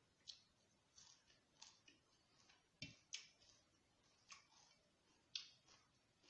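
Quiet, crisp chewing of raw vegetables and herbs, with a short crunch or wet mouth click every half second to a second and one fuller bite about three seconds in.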